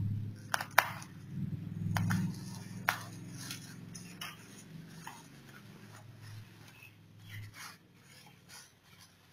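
Plastic bubble wrap being cut open and pulled apart by hand, crinkling and rustling. A few sharp clicks come in the first three seconds, the loudest just under a second in.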